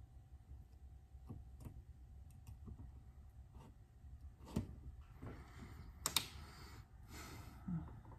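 Light clicks and taps of small metal parts being fitted onto a BESS edge tester on a digital scale. There is a louder click past the middle and a sharper double click soon after, with brief rustling around them.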